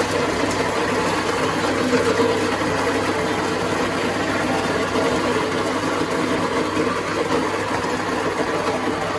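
WPM ZD-17W electric coffee grinder running steadily, its motor and burrs grinding coffee beans.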